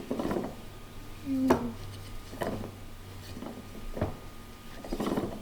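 A few irregular knocks, about one a second, with a brief low squeak about a second and a half in.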